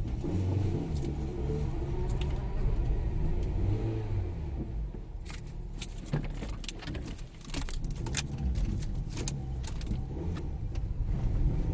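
Cabin sound of a Fiat Strada rolling slowly over cobblestones: steady low tyre and engine rumble, with sharp little clicks and rattles from the interior trim coming thick from about five seconds in. No knock from the front end: the steering rack's free play has been cured by the new rack.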